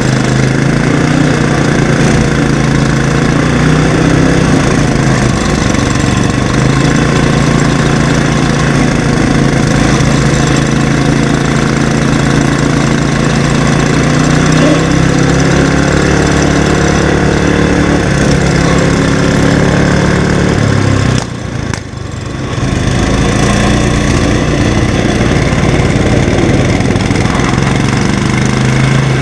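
Garden tractor engines running steadily throughout, their pitch shifting slightly now and then. The sound drops away briefly about 21 seconds in, then resumes.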